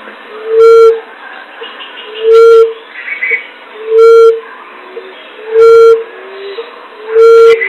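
Common emerald dove (punai tanah) lure call: a low, soft hooting note repeated five times, about one every second and a half. The notes are loud and distorted, over a fainter steady background.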